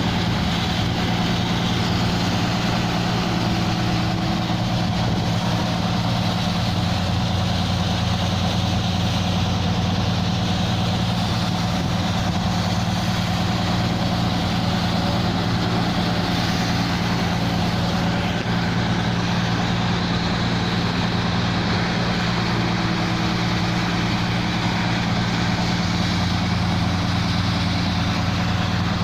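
Engine of a land mining rig running steadily at constant speed, an even hum with several fixed tones that don't change.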